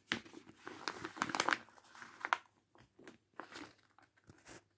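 A sheet of paper being folded by hand and pressed flat, crinkling and rustling in a quick run of bursts over the first couple of seconds, then a few separate rustles near the end.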